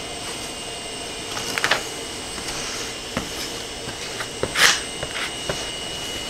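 Paper backing of a self-adhesive PEI sheet rustling and crinkling in short bursts, the loudest about four and a half seconds in, while a plastic squeegee presses the sheet down, with a few light taps. A steady background hum runs underneath.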